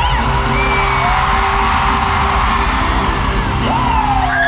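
Loud live K-pop concert sound as heard from the audience: the band's track playing through the arena speakers with a steady heavy low end, and fans yelling and screaming along over it.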